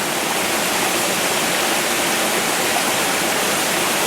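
Small mountain stream rushing and splashing over rocks: a steady, loud hiss of flowing water.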